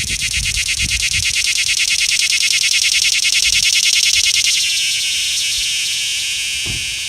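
Cicada singing close up: a loud rapid pulsing buzz, about eight pulses a second, that builds in loudness, then about two-thirds of the way through smooths into a steady continuous buzz that eases off slightly.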